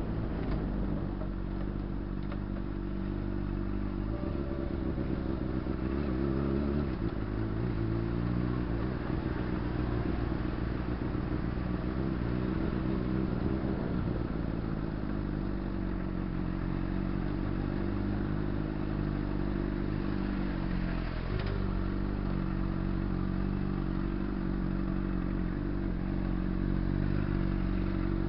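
Honda CBR600RR's inline-four engine running at low revs while riding slowly in traffic. The revs rise and fall briefly a few seconds in, and again about two-thirds of the way through, as the throttle is eased on and off.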